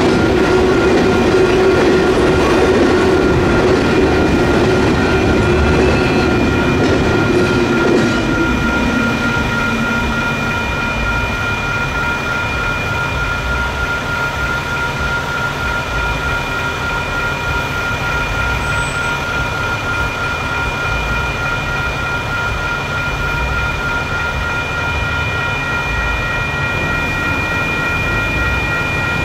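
Tail end of a freight train's railcars rolling and rumbling over the crossing, fading out about eight to ten seconds in. WCH electronic crossing bells ring steadily the whole time, the crossing still active after the train has cleared.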